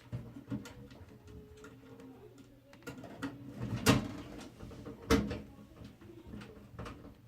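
Scattered clicks and knocks of computer parts and a PC case being handled, with two louder knocks about four and five seconds in.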